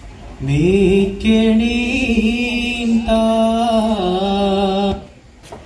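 Opening line of a Margamkali song: a singer's voice chanting long held notes, sliding up into the first note about half a second in, stepping down in pitch near the end of the line and stopping about five seconds in.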